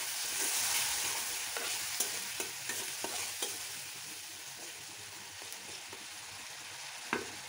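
Watered-down spice paste (masala) sizzling in a black karahi while a spatula scrapes and taps through it, frying the masala down. The sizzle and stirring fade over the first few seconds, and a single knock comes near the end.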